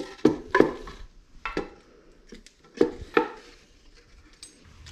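Fishing rods being set into a wooden rod rack: a handful of sharp, irregular knocks and clacks as rod butts and reels bump against the wooden tiers.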